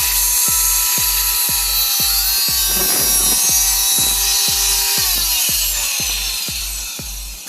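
A power tool running loud and steady with a high whine, then spinning down with a falling pitch after about five seconds. Background music with a steady beat plays throughout.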